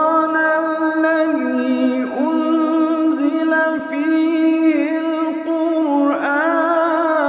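Devotional vocal chant sung as music: long held notes that step to new pitches every second or two, with little backing. About six seconds in the voice moves into wavering, ornamented turns.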